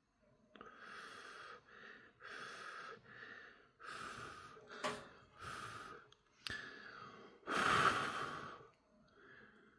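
A person breathing audibly, a run of about nine noisy breaths in and out with a sharp click about halfway. The longest and loudest breath out comes near the end.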